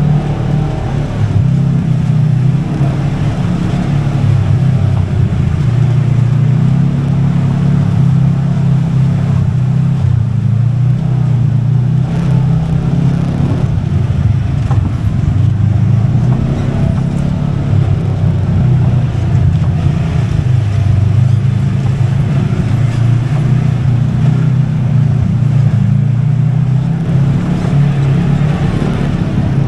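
Kawasaki KRX side-by-side's parallel-twin engine running under load, a loud steady drone whose pitch steps up and down as the throttle changes.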